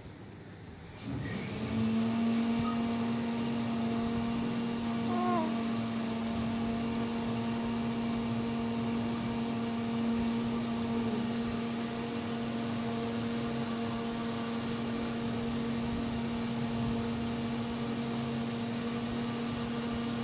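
A small electric motor humming steadily at one pitch with overtones, switched on about a second in.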